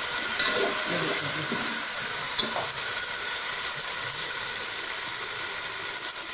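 Onion-tomato-spice masala sizzling steadily in hot oil in a metal pot. A metal slotted spoon stirs and scrapes through it in the first second or two.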